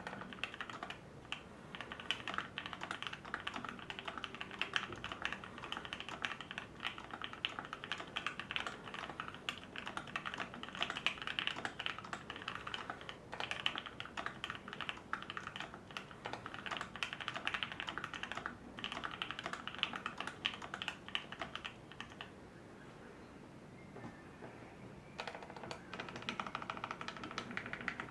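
Savage65 mechanical keyboard with lubed and filmed Pinoko switches, an FR4 plate and PBT keycaps, being typed on quickly in a steady stream of key presses. The typing stops for about three seconds near the end, then starts again.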